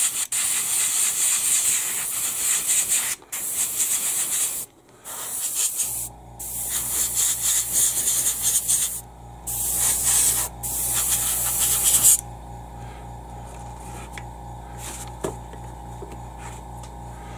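Airbrush spraying paint at about 10 to 15 psi, the air hissing in repeated bursts with short breaks, stopping about twelve seconds in. A low steady hum comes in about six seconds in.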